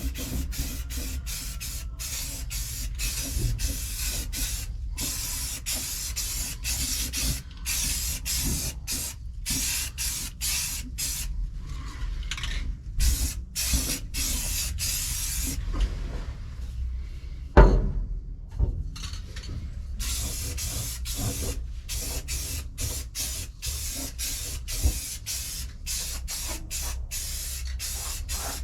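Tape being pulled off the roll in repeated hissing strips, about one a second, while it is wrapped around a wiring harness. A single knock about two-thirds of the way through.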